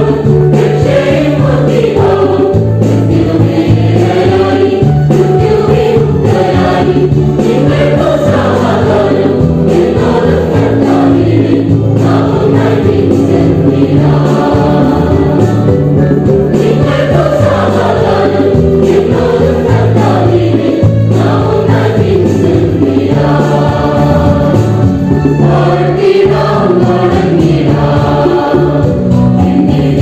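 Christian choral hymn: a group of voices singing over held bass notes that change every second or two.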